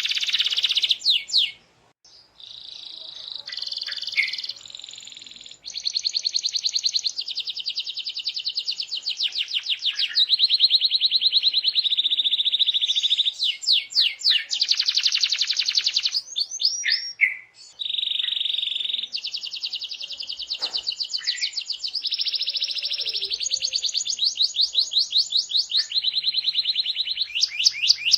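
Domestic canary singing a long, continuous song of rapid trills and fast repeated notes, pausing briefly about two seconds in and again around seventeen seconds.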